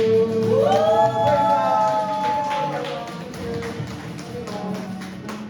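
The end of a group worship song: a voice slides up and holds a final sung note for a couple of seconds over a steady beat of sharp taps, and the music fades out.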